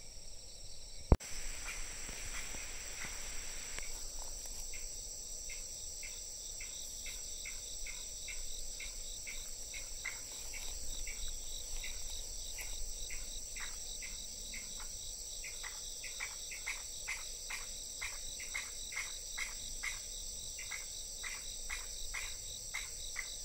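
Chorus of insects in woodland: a steady high-pitched trill, joined after a few seconds by repeated short chirps about two or three a second. A single sharp click sounds about a second in.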